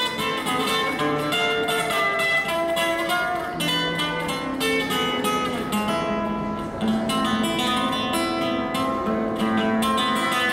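Background music on acoustic guitar, with quick plucked and strummed notes throughout.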